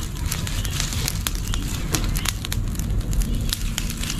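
A heap of dry leaves and palm fronds burning on open ground, crackling and popping irregularly over a steady low rumble.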